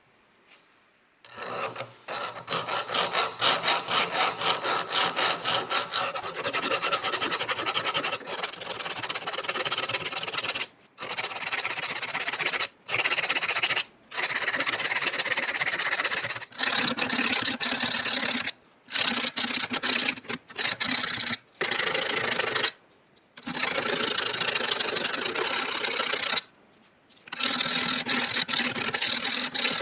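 Hand abrading work on an old hammer: rapid back-and-forth rubbing and rasping strokes that keep going, broken by short pauses every few seconds.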